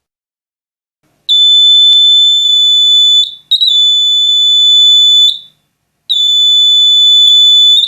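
Electronic buzzer of a DIY flame-sensor circuit sounding a steady, high-pitched tone in three long beeps of about two seconds each, set off as a flame is held in front of the circuit's IR receiver.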